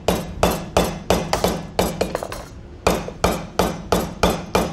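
Hammers striking whole coconut shells resting on a kitchen towel: quick, uneven blows, several a second, with a short pause a little after two seconds. The shells are being hit around the middle to crack them open along a fault line.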